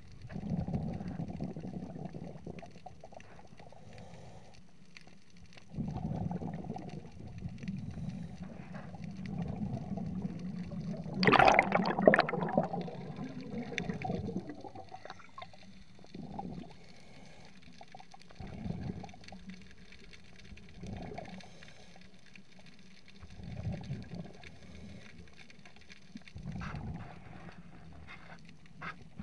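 Scuba regulator underwater: a diver's exhaled breath bubbling out of the exhaust in repeated bursts a few seconds apart, the loudest and longest about eleven seconds in, the later ones shorter.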